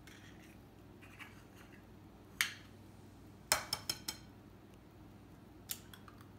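Eggs being cracked against a glass mixing bowl: a sharp tap about two and a half seconds in, a quick run of four clicks about a second later with a light glassy ring, and one more tap near the end.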